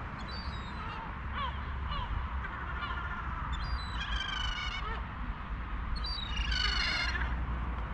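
Gulls calling, a run of harsh, nasal calls with the loudest about four and seven seconds in, over a steady low rumble.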